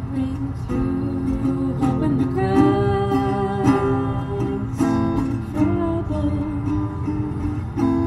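Acoustic guitar played with a strum while a voice sings a melody over it.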